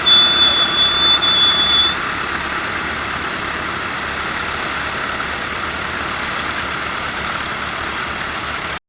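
Massey Ferguson 390 four-wheel-drive tractor's diesel engine running steadily while ploughing. A high, steady whine sits over it for the first two seconds. The sound cuts off suddenly near the end.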